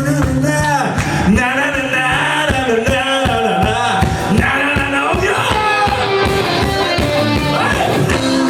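Loud recorded rock-and-roll or soul music with a male singer, guitar and a steady beat, played over a dance-hall sound system.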